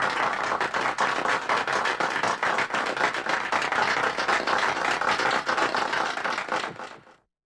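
A medium-sized crowd applauding indoors: dense, many-handed clapping. It dies away about seven seconds in, ending in silence.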